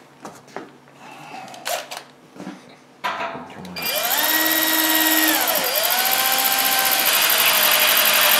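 A few light handling knocks, then about three seconds in a cordless drill starts and drills into the wall of a stainless steel kettle. The motor's whine rises, sags once midway and comes back up.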